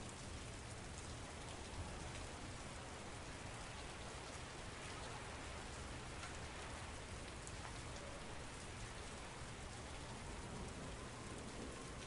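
Steady city rain: an even, dense hiss of rainfall with scattered sharp drop ticks over a low, steady rumble. A faint tone glides upward near the end.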